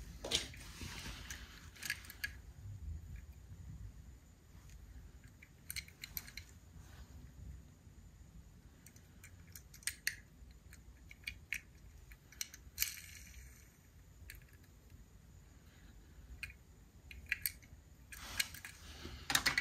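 Fingers handling and turning a small toy car: scattered light clicks and faint rubbing, a few at a time with quiet stretches between.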